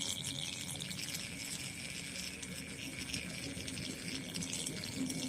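Faint sloshing and splashing of paddy water as a hooked eel is handled, over a steady high-pitched background chirr.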